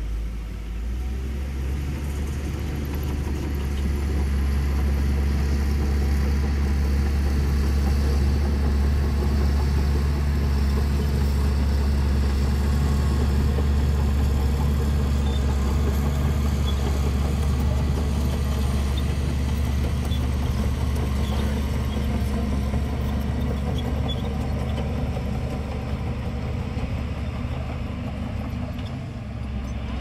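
Heavy diesel earthmoving engine running steadily under load, a low, even drone.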